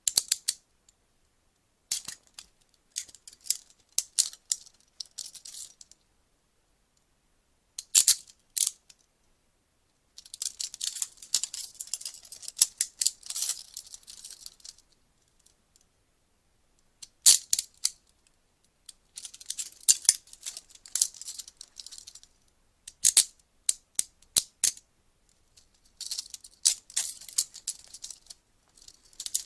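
Metal police handcuffs ratcheting and clicking in repeated bursts of a few seconds each, with short silences between them. The longest and densest run of rapid clicks comes about ten to fifteen seconds in.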